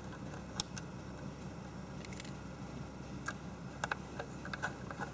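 Scattered light clicks and taps of small hardware being handled: screws, a screwdriver and the SSD and its bracket being fitted back into a laptop's drive bay, over a steady low hum. The clicks come in a cluster about three to five seconds in.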